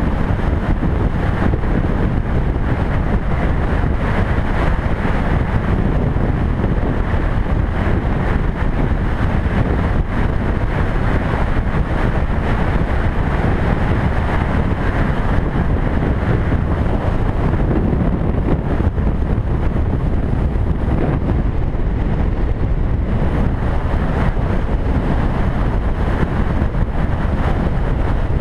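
Steady wind noise on the microphone of a camera mounted on a moving motorcycle at highway speed, mixed with the motorcycle's engine and road noise.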